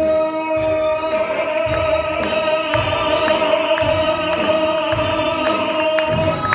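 Music: a singer holds one long steady note over a band with a regular beat and light cymbal ticks, the note cutting off near the end.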